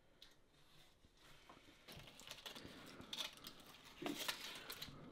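Paper takeaway bag rustling and foil wrapper crinkling as a burger is unwrapped. It starts about two seconds in and is busiest near the end.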